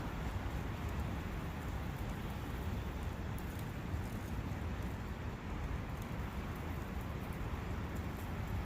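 Forest brook running steadily: an even, deep rush of flowing water.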